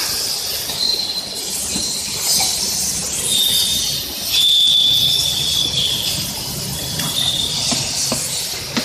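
Machinery on a battery welding and heat-sealing line running: a steady high hiss, with a thin high-pitched squeal from about three to six seconds in and a few sharp clicks near the end.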